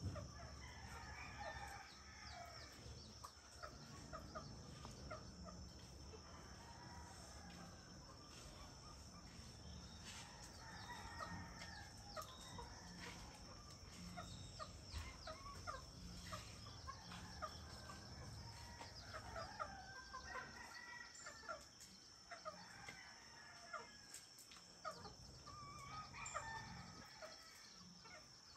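Roosters crowing faintly and repeatedly, about four long crows spaced several seconds apart, with short bird chirps between them.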